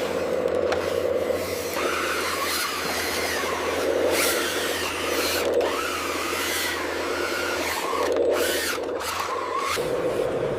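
Small electric motors of miniature RC construction machines whirring and whining, the whine wavering up and down in pitch as they work, over scraping and grinding noise and a steady low hum that stops near the end.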